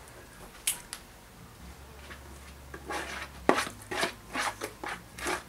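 A metal spoon knocking and scraping against a mixing bowl and a metal muffin tin as batter is spooned out. There is a single click about half a second in, then a run of sharp knocks, roughly three a second, in the second half.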